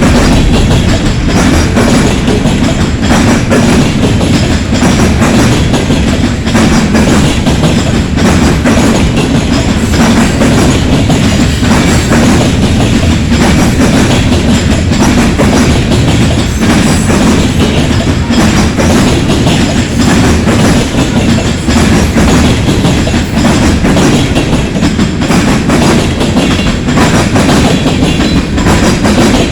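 Freight train cars rolling past, a steady loud rumble with wheels clattering over the rails.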